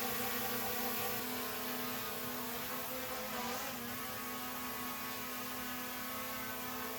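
A steady engine drone: a motor running at an even speed with a held pitch, which shifts slightly about a second in and wavers briefly a few seconds in.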